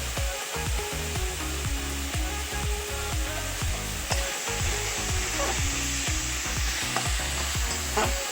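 Potato filling sizzling in hot oil in a pan while a spatula stirs it, with a few sharp scrapes against the pan about four seconds in and near the end.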